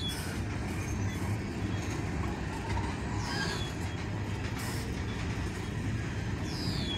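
Freight train of tank cars rolling past a grade crossing: a steady rumble of the cars and their wheels on the rails.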